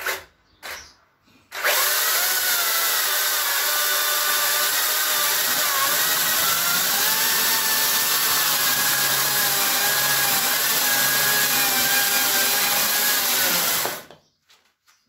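Makita 36-volt cordless electric chainsaw cutting into a block of ash to rough-shape the outside of a bowl blank. It starts about a second and a half in, runs steadily under load with its whine wavering slightly in pitch, and stops abruptly about a second before the end.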